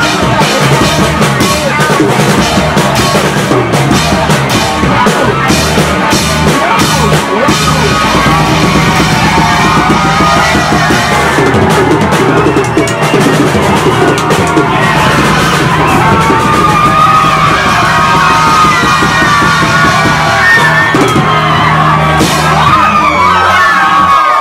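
A live rock band plays loudly on electric guitar, bass guitar and drums, with the crowd yelling along. The bass drops out shortly before the end.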